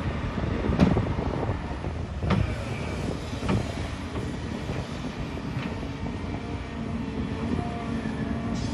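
Diesel engines of a Volvo EC290BLC hydraulic excavator and a dump truck running steadily at work, with a few sharp knocks in the first four seconds.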